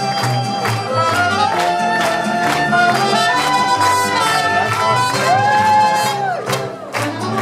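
Mariachi band playing: a melody with vibrato over a steady strummed rhythm and stepping bass notes, with one long held note about five seconds in.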